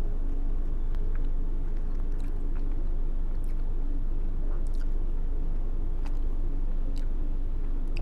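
A person chewing a soft edamame dim sum: faint, scattered wet mouth clicks over a steady low hum.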